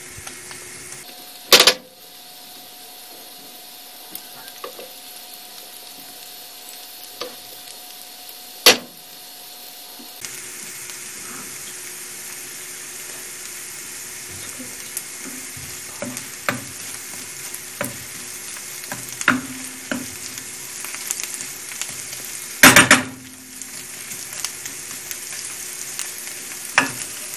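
Sliced onions sizzling in butter and oil in a nonstick frying pan, stirred with a wooden spoon that scrapes and clicks against the pan. Three sharp knocks stand out, the loudest a few seconds before the end.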